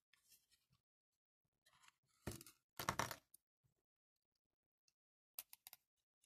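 Scraping and clicking from hands and a thin metal tool working the small date-band wheel of a Trodat Printy Dater 4810 stamp: two short rasping scrapes about two and three seconds in, then a few light clicks near the end.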